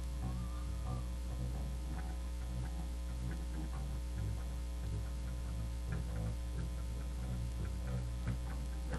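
Steady low electrical mains hum, with faint, indistinct sounds and a few light clicks over it.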